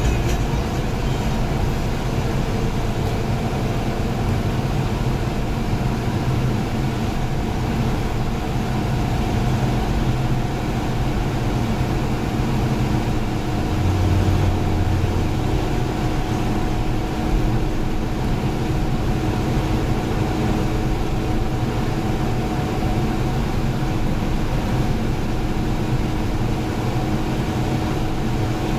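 Steady road and engine noise of a moving car heard from inside its cabin, with a brief deeper swell about halfway through.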